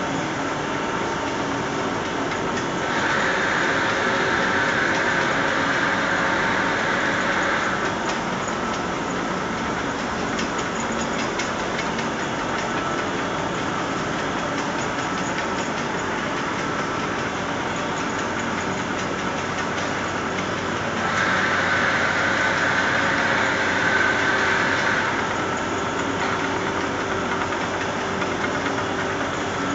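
Fibre carding and web-laying machinery of a bedding wadding line running: a steady mechanical clatter of rollers and chain drives. Twice, a few seconds in and again past the middle, a louder hiss rises over it for about four seconds.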